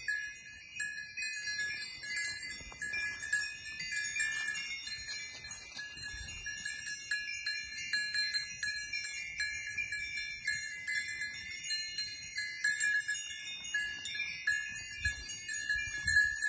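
Small bells on grazing goats tinkling and clinking irregularly as the goats move and crop grass, several bells ringing over one another.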